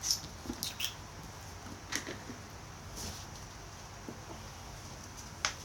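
A handful of short, light clicks and rustles scattered over a few seconds, from a cardboard product box being handled and moved about.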